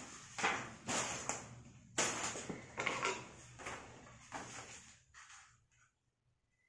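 Sheets of green craft paper rustling as they are handled, in short rustles about once a second that die away near the end.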